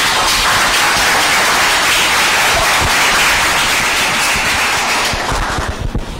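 Audience applauding: many hands clapping together, starting abruptly and dying away near the end.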